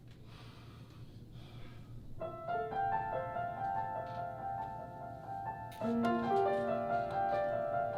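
Piano introduction starting about two seconds in, notes ringing and overlapping, with lower notes joining near six seconds; faint room noise before it.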